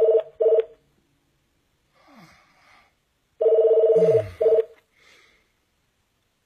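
Mobile phone ringing with a loud two-tone warbling ring in a long-then-short pattern, heard at the start and again about three and a half seconds in. A man groans sleepily, with a falling groan as the second ring begins.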